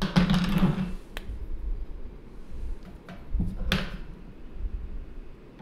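Handling noise from drawing tools on a tabletop: a rustle in the first second, a sharp click about a second in, and a few quick knocks and taps around three to four seconds in, as a pen is set down and a water brush is picked up and put to the paper.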